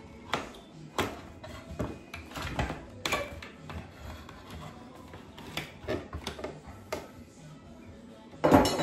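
Flat steel pry bar levering a nailed wooden trim board off a ceiling beam: irregular sharp cracks and creaks as the wood and nails give, with the loudest burst near the end as the board pulls loose.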